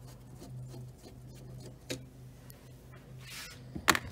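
Flat-head screwdriver prying at a plastic trim piece on a car seat back that will not come free: a small click about halfway, a brief scrape, then a sharp plastic click near the end.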